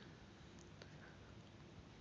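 Near silence: room tone, with two faint ticks a little past halfway.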